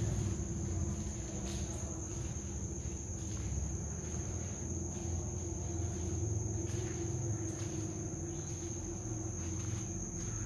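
Crickets chirring at night: one unbroken high-pitched trill over a low steady rumble, with faint scattered ticks.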